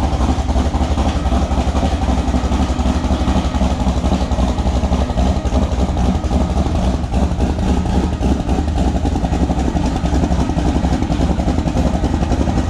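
A vehicle engine running steadily at a constant speed, with no revving or breaks.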